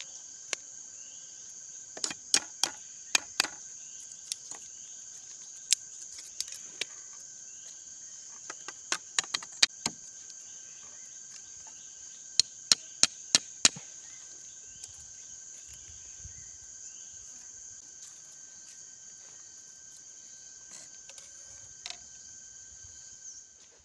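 Machete blade striking and shaving thin bamboo strips: clusters of sharp clicking cuts, a few seconds apart. Under them, a steady high chirring of insects.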